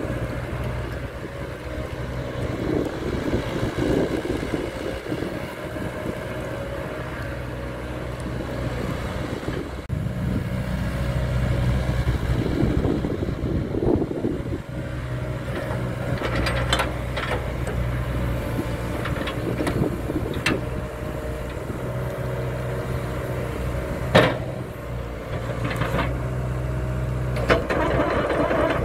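Hitachi Zaxis ZX75US compact excavator's diesel engine running steadily, with a few sharp metallic knocks in the second half.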